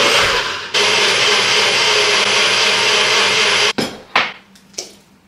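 Blender motor running steadily, puréeing tomato and vegetables for gazpacho, then cutting off suddenly after about three and a half seconds. A few sharp knocks follow as the blender jar is handled.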